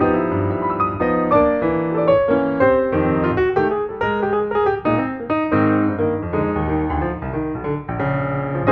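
Background piano music: a gentle melody of piano notes over a bass line.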